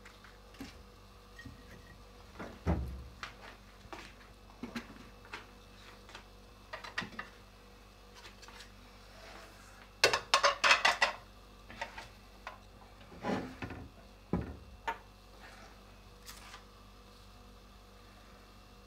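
Scattered knocks and light clicks at a gas stove under a wok of oil, with a quick run of about half a dozen clicks about ten seconds in as the stove is being lit.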